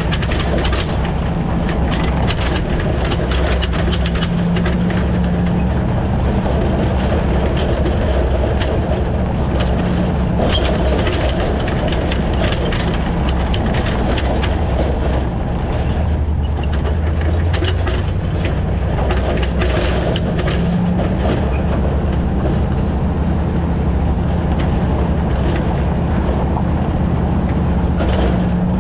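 Towing noise picked up at the trailer hitch: a steady road and drivetrain drone with frequent clanks and clicks throughout from the hitch and the empty trailer behind it. An anti-rattle clamp holds the ball-mount shank tight in the receiver, and the rattle that remains is put down by the owner to the trailer being empty.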